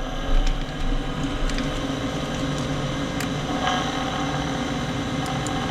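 Carrier gas furnace draft inducer motor running with a steady hum, its pitch rising slightly in the first second as it comes up to speed, with a few light clicks. The inducer is sticking and only gets going after being spun by hand.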